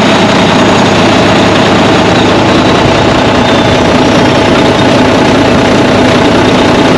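Semi truck's diesel engine idling steadily, heard close up in the open engine bay, just restarted after its fan and fan clutch were replaced.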